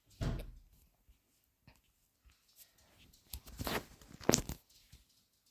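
Irregular scratchy rustling noises: one short burst near the start, then a cluster of them about three to four and a half seconds in, the sharpest about four seconds in.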